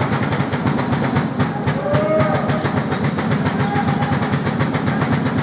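Fast, steady rhythmic clatter of percussion, about eight strikes a second.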